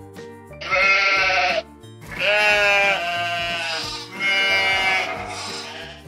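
A sheep bleating three times, each call lasting a second or more, over background music.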